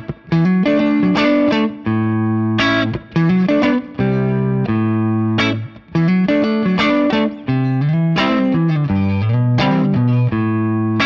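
Yamaha Pacifica Professional electric guitar played clean through the neck pickup: plucked single-note phrases and chords, some notes left to ring and others in quick runs.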